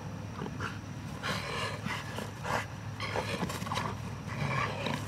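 A dog tugging on a bite toy, with several short bursts of panting and scuffling on grass over a steady low hum.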